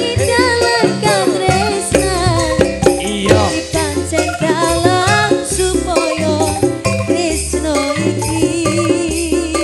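Live campursari music: a band with drums, Javanese kendang and bass playing under a wavering sung melody.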